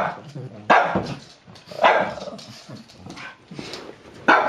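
Pug barking: three sharp barks in the first two seconds, then another near the end.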